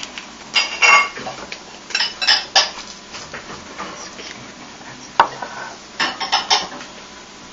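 A fork and other cutlery clink and scrape against a breakfast plate in a few short bursts of taps: about half a second in, around two seconds, a single tap past five seconds, and a quick run near six seconds.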